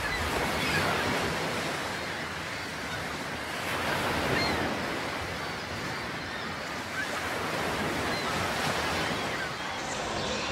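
Sea waves washing on the shore: a steady rushing noise that swells and eases every few seconds.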